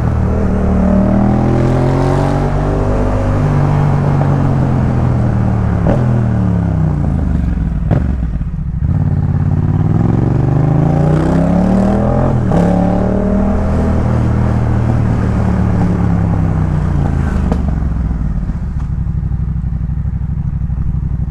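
Yamaha MT-07 parallel-twin engine through a Jeskap K4 full exhaust, ridden on the road. The engine note climbs and falls twice as the rider accelerates and eases off, with a brief drop about eight seconds in, then settles to a steadier note near the end.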